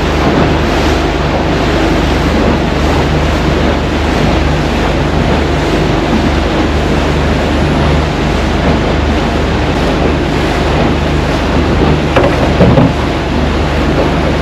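Honda four-stroke outboard running steadily as the aluminium boat travels at speed, with water rushing in the wake and wind buffeting the microphone. A few louder bumps come about twelve seconds in.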